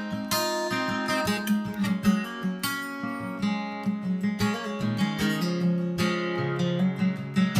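Background music: acoustic guitar, strummed and picked.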